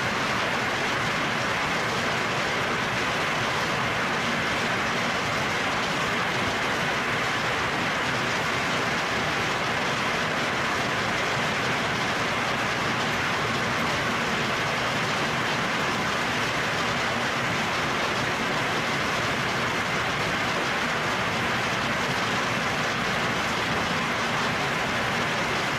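Hail and heavy rain falling hard on trees and foliage during a strong hailstorm, a dense, steady hiss without let-up.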